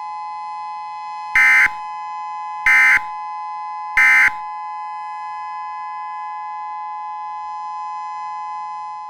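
EAS two-tone attention signal, a steady dual tone, sounding throughout. About a second and a half in, three short bursts of SAME digital data tones cut in over it, about 1.3 seconds apart.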